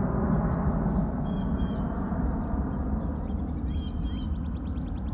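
Four-engine jet airliner climbing away after takeoff: a steady low jet-engine rumble that slowly fades. Birds call twice over it, and a fast, even chirring trill starts near the end.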